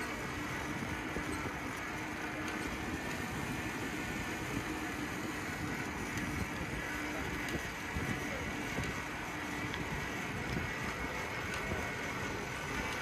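Steady riding noise from a noisy bicycle rolling along a wet paved path: tyre hiss on the wet surface mixed with the bike's own rattle.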